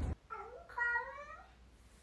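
Domestic cat meowing twice: a short meow, then a longer, drawn-out one about a second in that falls slightly in pitch.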